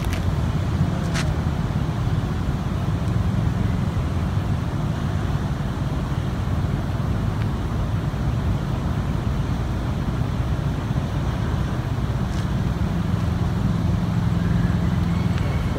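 Steady low outdoor rumble with no clear pitch, the kind left by wind on the microphone or distant traffic, with a couple of faint clicks, one about a second in and one near the end.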